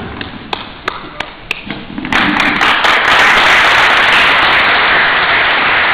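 Audience applauding: a few scattered claps at first, swelling about two seconds in into steady, full applause.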